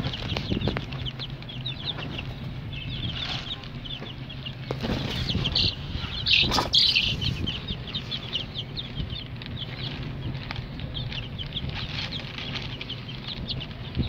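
Young broiler chicks peeping, many short high cheeps overlapping throughout, with a louder flurry of calls about six to seven seconds in.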